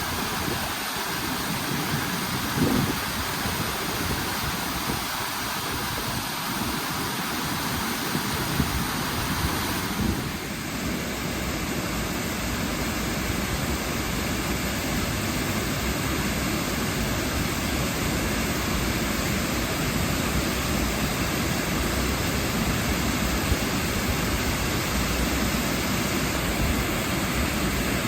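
Waterfall: a steady rush of falling water. About ten seconds in it changes abruptly to a fuller, deeper rush.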